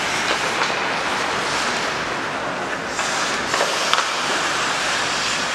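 Ice hockey play heard from the rinkside: a steady scraping hiss of skates on the ice, with two sharp clacks of hockey sticks and puck about three and a half and four seconds in.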